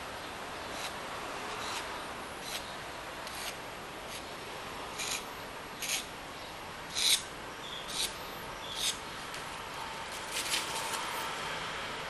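Palette knife scraping and dabbing thick acrylic paint onto a canvas: about a dozen brief scrapes at irregular intervals, the loudest about seven seconds in, over a steady faint hiss.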